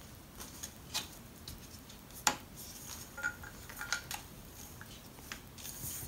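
Scattered light clicks and taps of a plastic fixing block being pressed onto a lawnmower's lower handle tube and the handle being moved about, with one sharper knock about two seconds in.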